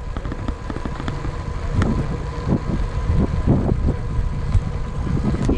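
Wind buffeting the camera microphone: a steady low rumble with irregular gusty thumps.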